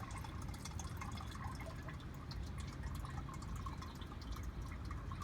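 Motor oil being poured, trickling and dripping steadily.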